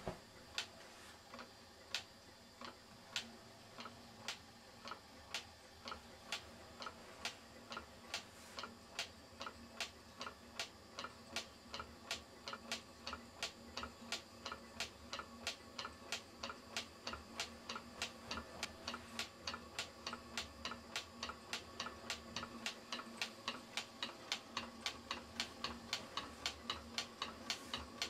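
Self-starting Ringbom-type low temperature difference Stirling engine running, with a sharp regular click on each cycle that speeds up from about one and a half to about three a second as the engine gathers speed. The click is the typical knock of a Ringbom engine's free displacer against its stops.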